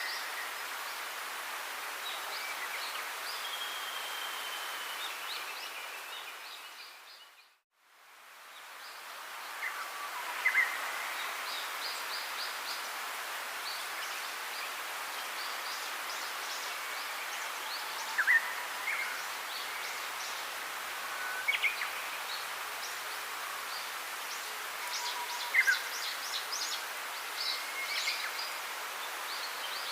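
Birds chirping and calling in short chirps and quick trills over a steady outdoor hiss. The sound fades out to near silence about eight seconds in and fades back up.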